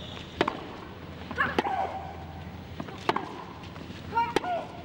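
Tennis rally: four racket strikes on the ball, about one every one and a half seconds, alternating between the players. One player grunts with every other shot, about one and a half seconds in and again near the end.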